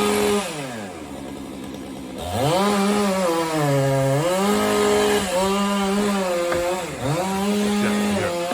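Two-stroke chainsaw cutting into a large pine trunk. It revs briefly, drops to idle for about two seconds, then runs at full throttle, with the engine note sagging several times as the chain bites under load.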